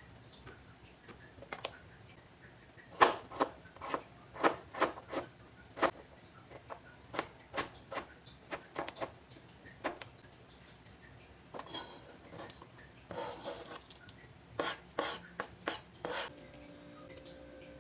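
Cleaver chopping kalabasa squash on a plastic cutting board: irregular knocks of the blade striking the board. Near the end come scraping and rubbing sounds as the diced squash is slid off the board into a bowl.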